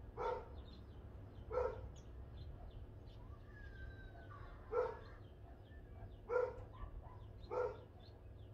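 A dog barking five times at irregular intervals, single short barks, with small birds chirping faintly behind.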